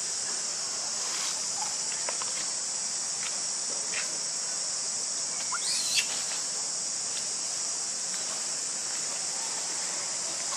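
Steady high-pitched insect chorus droning throughout, with a few faint clicks and one short rising high squeak about six seconds in.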